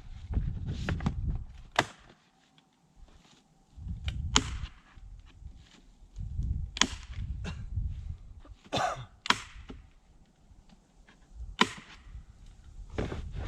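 Staple gun driving staples through felt roofing paper into a wooden beehive box: a sharp snap every couple of seconds, about six in all, with a longer crackle of the paper in between and a low rumble under it.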